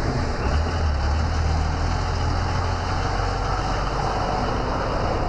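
Heavy truck engine running with a steady, low rumble.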